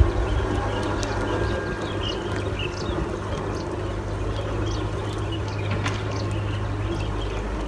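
A weighted gill net feeding out of a hand into the water, its sinkers giving scattered light clicks and ticks over a steady low rumble.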